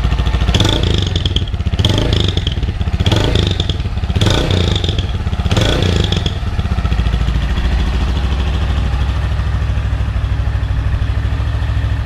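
Honda CG 160's single-cylinder four-stroke engine running through an aftermarket G-Moto 'estralado' exhaust, blipped in about five short revs, then settling to a steady idle about halfway through.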